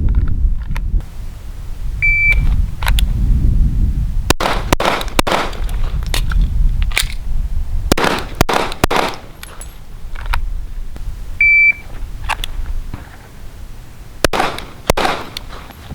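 Shot timer giving its start beep twice, each beep followed by a string of 9mm pistol shots fired in quick succession, with some pauses between strings.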